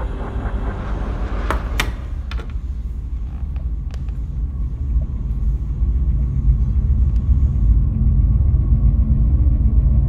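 A steady low rumble, with a few sharp clicks in the first few seconds.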